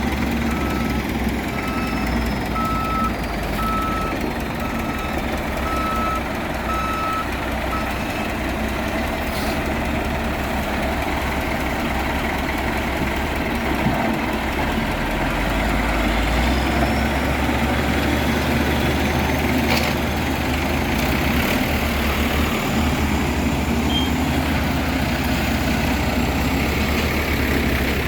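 Caterpillar 140H motor grader's diesel engine running steadily while grading a road, with a reversing alarm beeping at an even pace for the first eight seconds or so. About halfway through, the engine note steps up a little and holds.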